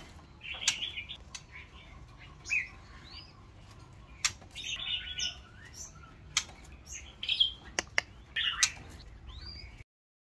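White-rumped shama in a bamboo cage giving short chirps and brief rising whistled calls, mixed with sharp clicks and taps as it hops about the cage.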